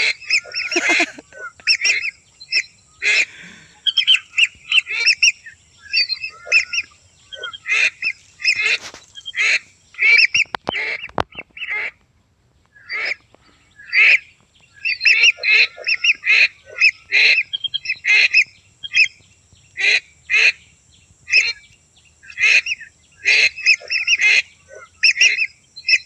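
Lesser whistling ducks calling: short, sharp whistled notes repeated in quick runs, with a short break about halfway through.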